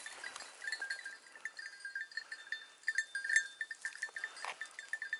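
Small metal bell tinkling in quick, uneven strokes, several a second, moderately faint.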